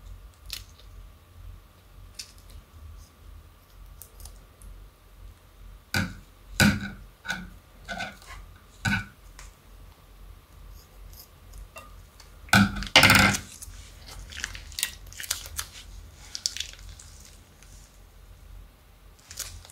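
Plastic piping bag squeezing out a clear slime mixture: a run of short wet squelching pops about six seconds in, then a louder spluttering burst around twelve seconds in, followed by soft crackling.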